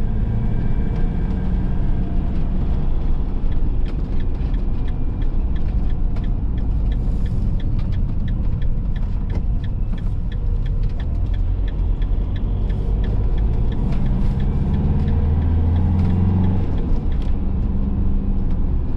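Motorhome cab noise on the move: steady engine and road rumble, with small rattles ticking throughout. The engine note swells for a few seconds near the end.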